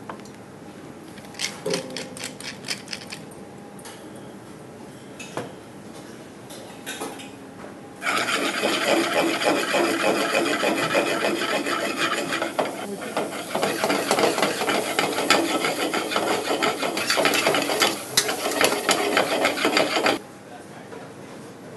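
A few light clicks, then a stainless steel saucepan of shallots in oil slid and shaken on a cast-iron flat-top stove: a loud, steady rasp of metal scraping on metal with rapid clicks, which stops abruptly.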